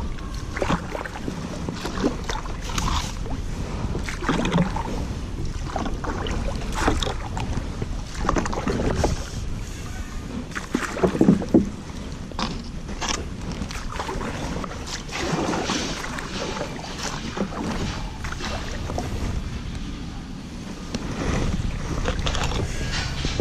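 Canoe being punted upstream against a quick current: irregular paddle splashes and knocks over a steady low wind rumble on the microphone.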